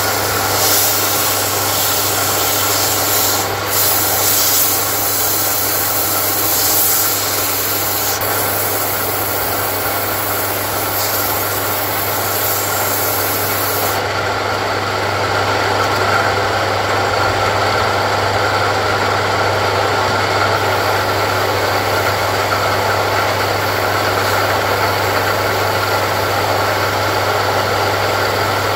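Homemade wood lathe running, its single-phase 0.27 kW induction motor giving a steady hum, while sandpaper is held against the spinning wooden handle with a continuous rubbing hiss. The highest part of the hiss falls away about halfway through.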